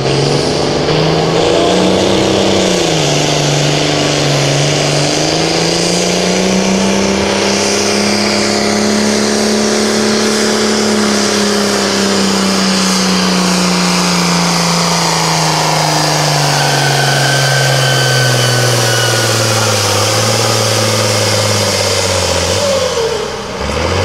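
Turbocharged diesel farm tractor engine at full throttle, pulling a weight-transfer sled. The engine note climbs early, holds high, then sinks steadily as it lugs down under the sled's growing load, and drops away sharply near the end as the run ends.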